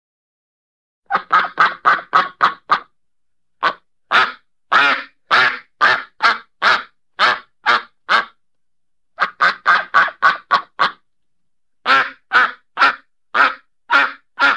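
Duck quacking: four runs of short, evenly spaced quacks, some runs fast at about four a second and others slower at about two a second, with brief silences between the runs.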